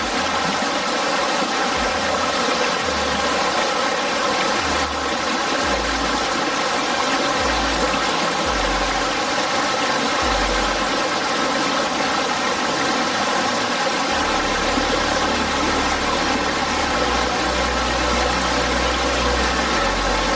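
Waterfall rushing, a loud, steady roar of falling water, with low rumbles coming and going underneath.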